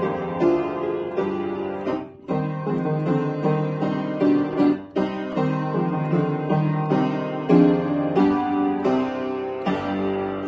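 Upright piano played: a flowing line of notes over repeated chords, with two brief breaks in the phrase, about two and five seconds in.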